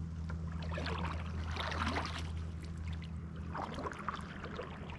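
Sea kayak being paddled on calm water: soft splashes of the paddle blades dipping in a few times, with water trickling along the hull over a steady low hum.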